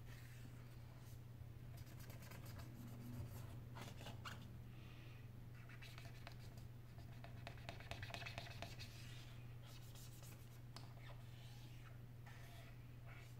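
Faint scratching, rubbing and small clicks as fingers and a small pick work along the edge of an opened Sony Xperia Z3's frame, cleaning it. A steady low hum runs underneath.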